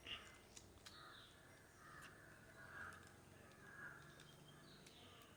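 Near silence, with a few faint clicks of plastic Rubik's cube pieces being handled.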